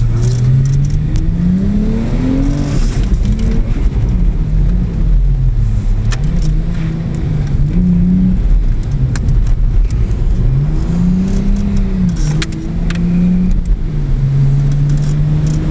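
Car engine heard from inside the cabin, its revs rising and falling over and over as the throttle is worked while drifting. A few sharp clicks or knocks sound over it.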